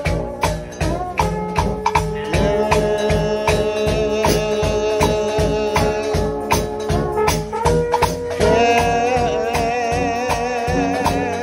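Gospel shout band of slide trombones and trumpets playing, with a bass drum, snare and cymbals keeping a steady beat. The horns hold long notes that waver in pitch, loudest in the second half.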